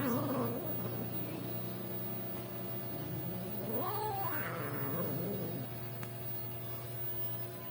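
Cats caterwauling in a fight standoff: drawn-out, wavering yowls, a short one at the start and a longer one that rises and falls about halfway through.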